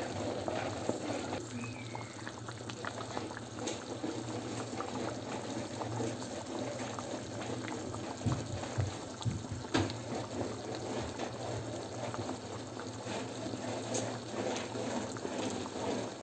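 A thick tomato-based okra and lamb stew bubbling in a large pot: a steady run of small pops and plops over a low hum, with a ladle now and then lifting and pouring sauce back in.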